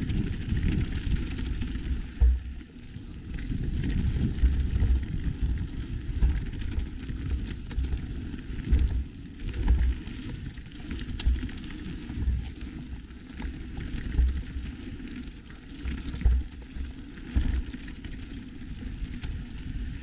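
Mountain bike rolling fast down a dirt and gravel trail: tyre noise and bike rattle under a low wind rumble on the microphone, broken by frequent sharp knocks as the bike hits bumps and rocks.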